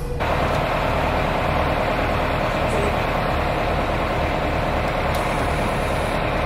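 A vehicle engine idling steadily, with a low hum under it.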